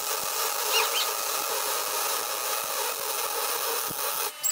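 MIG welder arc running on steel as a steady hiss, then cutting off near the end. It is shielded with 100% argon instead of the argon/CO2 mix, a gas the welder blames for spatter and a wandering arc.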